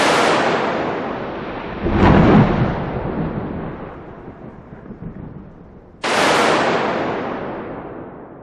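Thunder: a sharp clap that rumbles away, swelling into a deeper, louder rumble about two seconds in, then a second sharp clap about six seconds in, also rumbling away.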